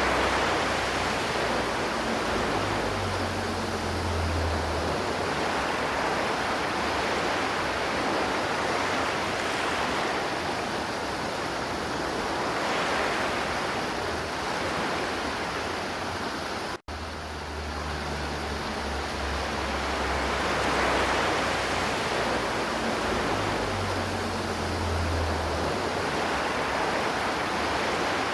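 River water flowing and rushing steadily, a continuous even wash of sound. It cuts out for an instant about two-thirds of the way through, then carries on.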